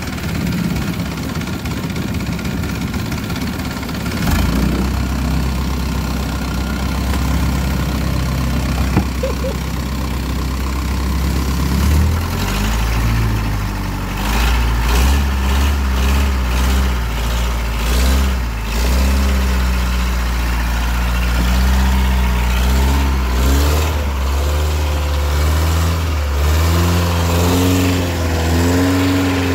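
Long-tail boat's exposed inboard engine running. A steady deep note sets in about four seconds in, then from about twelve seconds the engine speed goes up and down several times and climbs near the end as the boat gets under way.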